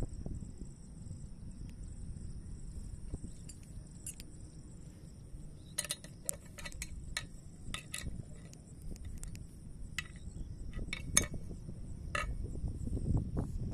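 Insects trilling steadily in high-pitched tones over a low rumble, with a run of sharp clicks in the middle.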